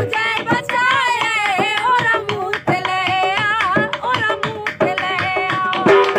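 A woman sings a folk song in a high, ornamented voice with wavering turns, over a steady beat of dhol drum strokes.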